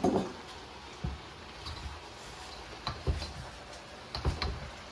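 A few separate knocks and clatters of a cooking utensil against a pan while vegetables are stirred or tossed, with a pair of clunks about three seconds in and again near the end.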